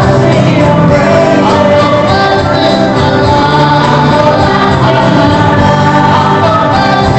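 Children's choir singing a church song together, with sustained notes and no breaks.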